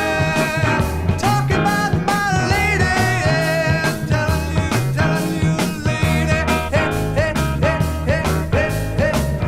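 1971 rock band recording played from the original vinyl record: a full band with drums keeping a steady beat under a bass line and a bending lead melody.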